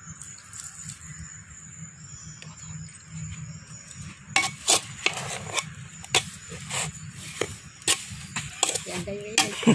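A spoon stirring the boondi laddu mixture in a pot and knocking against its sides. For the first few seconds there is only a low steady background, then from about four seconds in come irregular sharp clinks and knocks, one or two a second.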